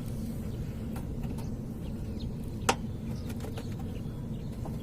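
Plastic bumper clip near the front wheel being worked loose by hand: a few light clicks, with one sharp click a little past halfway. A steady low hum runs underneath.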